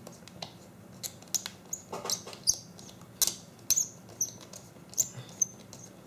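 Irregular small clicks and scratchy scrapes of hands handling insulated wires and a small electronics module, pushing the wires into place.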